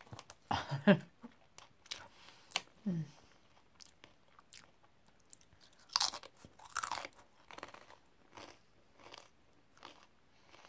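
A person crunching and chewing crisp snack chips. There are loud bites about half a second in and again around six seconds in, then lighter chewing crunches repeating less than a second apart.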